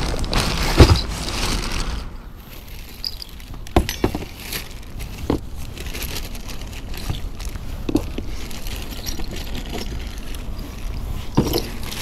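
Plastic grocery bag rustling and crinkling as it is handled, with several short sharp knocks of gear being packed in the car trunk.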